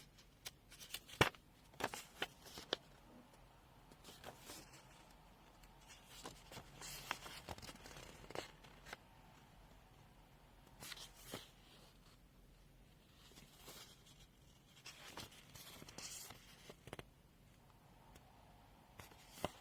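Faint rustling and light clicks of paper being handled, as the pages of a printed user manual are turned and flattened.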